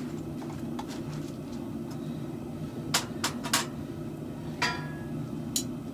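Light metal-on-metal clinks over a steady low hum: three quick clicks about halfway through, a short ringing clink a little later, and one more click near the end.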